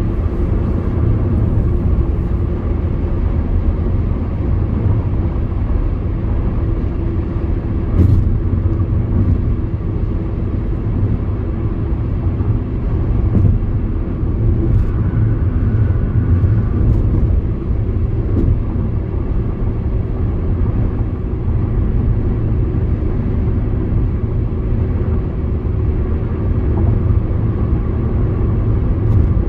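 Steady low rumble of a car driving, with tyre and road noise and a faint engine hum, heard from inside the car. There is a single brief knock about eight seconds in.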